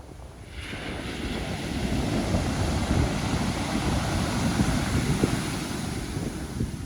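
Pacific Ocean surf: a wave breaks about half a second in and washes in with a loud, steady hiss, over wind rumbling on the microphone.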